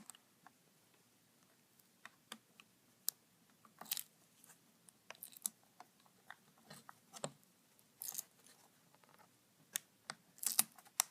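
Scattered small clicks and taps of hands handling a laptop LCD panel while fitting its flexible display cable connector, with a few brief rustles about four, eight and ten seconds in.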